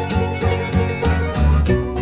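Acoustic bluegrass band playing an instrumental passage of a slow blues. Upright bass notes are the loudest part, under plucked mandolin, guitar and banjo and a harmonica line.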